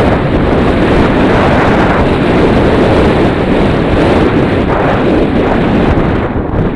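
Loud, steady rushing noise of wind buffeting the microphone.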